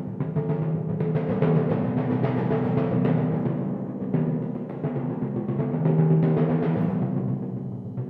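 A set of four copper timpani played in a fast, unbroken stream of stick strokes, the drums' pitched tones ringing over one another. It swells about six seconds in, then softens toward the end.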